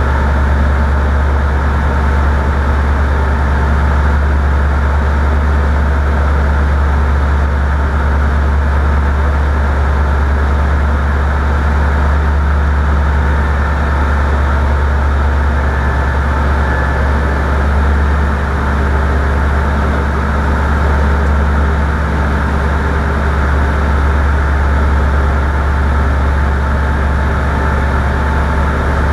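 Light propeller aircraft's piston engine running steadily at constant power, a loud, even drone with no change in pitch.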